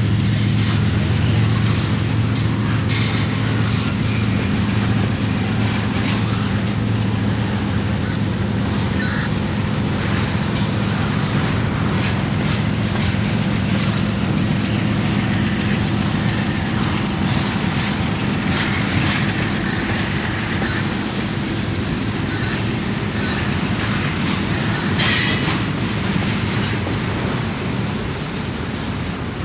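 Train rolling past, with the steady drone of diesel locomotive engines fading as the cars go by. Wheels click over the rail joints throughout, with a brief wheel squeal near the end.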